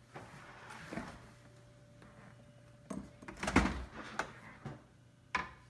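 Refrigerator door opened and a plate set onto a shelf inside: a cluster of knocks and clatters, the loudest about three and a half seconds in, then a single sharp click near the end.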